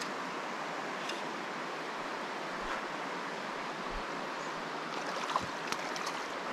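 Steady rush of a mountain river's current over rocky pocket water; near the end, sharp splashes as a hooked fish thrashes at the surface.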